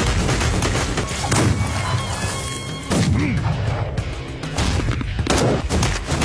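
Anime fight sound effects over background music: a dense run of punch impacts, with heavier hits about a second in, at three seconds, and past five seconds.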